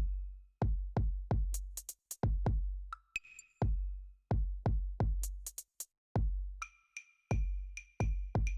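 Background electronic music with a drum-machine beat: deep booming kicks, quick high hi-hat ticks and short synth notes.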